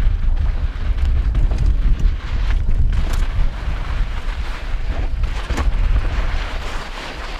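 Wind buffeting a helmet-mounted GoPro Hero4's microphone as a downhill mountain bike descends fast, over the crunch of tyres on loose pumice dirt and scattered sharp clatters of the bike over bumps.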